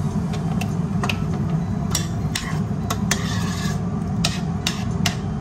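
A metal spoon clinking and scraping against a stainless steel pot as spaghetti sauce is scraped out of a pouch and stirred: a run of short, irregular clicks and scrapes over a steady low hum.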